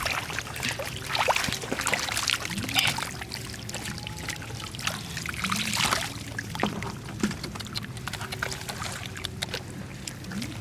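Water splashing and pouring in irregular bursts, louder about a second in and again around the middle, over a steady low hum.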